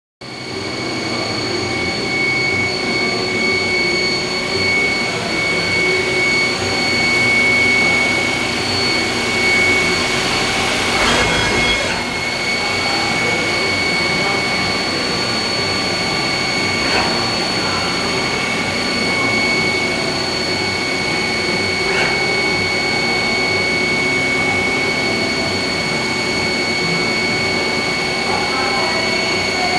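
Haas ST-30 CNC lathe running under power: a steady high whine over an even machinery hum, with a brief louder rush about eleven seconds in and a few faint clicks.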